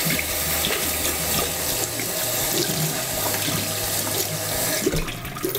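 Cold water running steadily from a kitchen tap onto cooked wheat noodles in a metal sieve and splashing into a stainless steel sink: the noodles being rinsed under the cold tap to cool them quickly after boiling.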